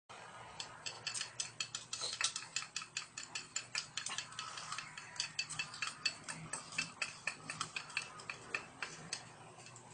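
Metal spoon clicking and scraping rapidly against a stainless steel bowl as a child eats: quick, irregular clinks, several a second.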